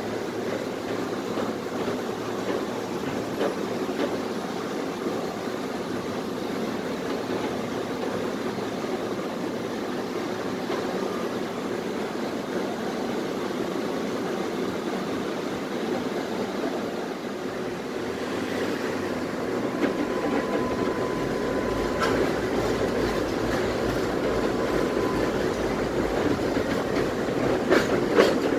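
Tatra T3SU tram running along the track, heard from inside the car: a steady rumble of wheels on the rails. The rumble grows heavier about two-thirds of the way through, with a faint steady whine for a few seconds, and a few sharp rail-joint clacks near the end.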